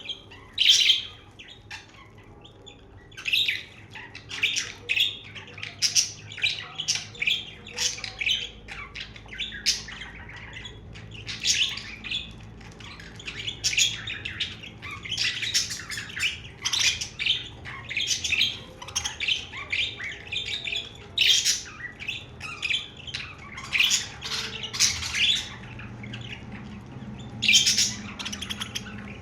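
Budgerigars chirping and chattering, a dense run of short calls with a brief lull about a second in.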